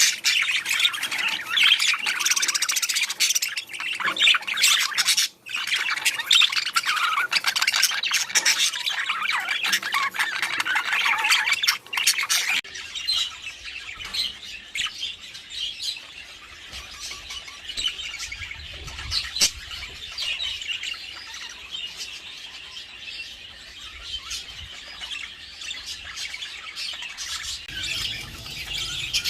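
Many budgerigars chattering, chirping and squawking together in a dense, busy mass of calls. About twelve seconds in the chatter drops suddenly to a quieter, sparser level.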